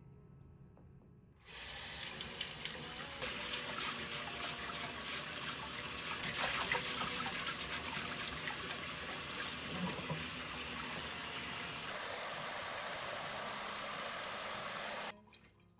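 Kitchen tap running water into a sink, rinsing grapes. The flow starts suddenly about a second and a half in, runs steadily, and cuts off sharply shortly before the end.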